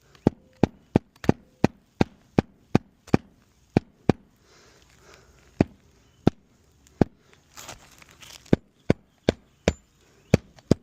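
Hammer driving roofing nails through shingles: a quick run of sharp blows about three a second, then a few more spaced strikes, with a brief rustle of shingle partway through.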